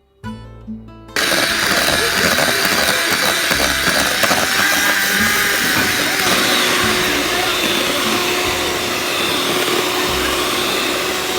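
Electric kitchen appliance motor running steadily and loudly, switching on abruptly about a second in, with soft music underneath.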